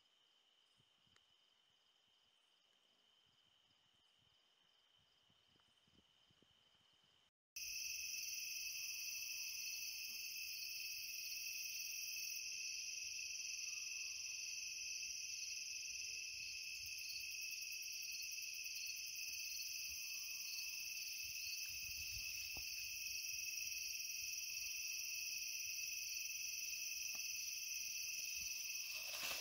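Night insect chorus of crickets: a dense, steady high trilling, faint at first and much louder after an abrupt jump about seven seconds in. Faint short rising-and-falling sounds recur every few seconds underneath.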